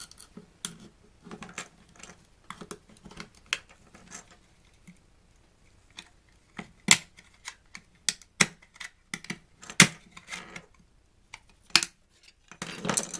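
Irregular clicks, snaps and knocks of hard plastic and metal parts of a TV antenna unit being pried and worked apart by hand, with several louder snaps in the second half.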